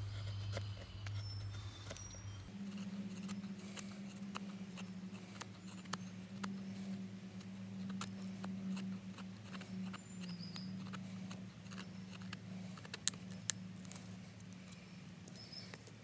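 A Victorinox Fieldmaster Swiss Army knife blade shaving and scraping a resinous fatwood block: a run of short, crisp scraping clicks as the curls come off, with two sharper clicks about 13 seconds in. A steady low hum runs underneath and steps up in pitch about two and a half seconds in.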